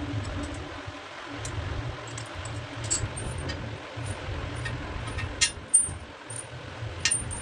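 Scattered sharp metallic clicks and clinks of mixer-tap fittings being handled, over a fluctuating low rumble.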